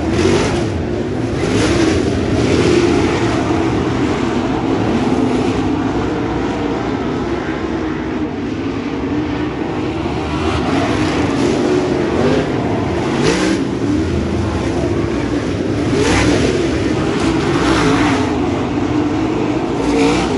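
Dirt super late model race cars' V8 engines running as the field circles the track, with cars passing close by in several louder sweeps and the engine pitch rising and falling through the turns.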